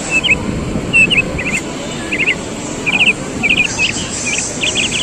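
Short high chirps in quick groups of two to four, recurring about once a second, over a low outdoor rumble.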